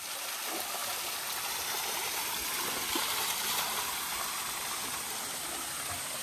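Spring water pouring steadily from a pipe spout on a stone tank and splashing onto a person washing under it and onto the stone floor below, a continuous rushing splash.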